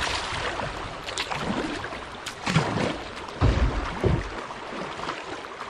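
River water rushing past a kayak in a riffle, with the splashes of paddle strokes and a brief low rumble about three and a half seconds in.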